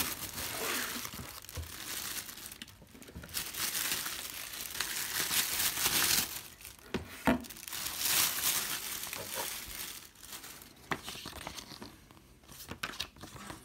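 Clear plastic packaging bag crinkling and rustling as a work light is pulled out of a cardboard box, with a few knocks; the rustling thins out near the end as paper is handled.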